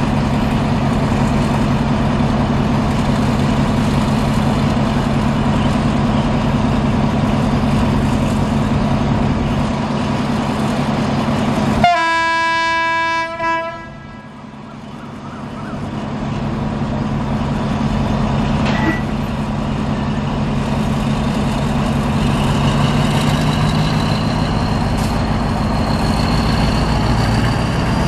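Diesel locomotive engine running with a steady low hum. About twelve seconds in, the locomotive's horn sounds once for under two seconds, and the sound then dips briefly and builds back. Near the end a faint high whine rises slowly in pitch.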